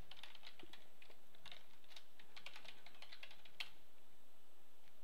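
Computer keyboard typing: a quick run of key clicks that ends in one sharper keystroke about three and a half seconds in.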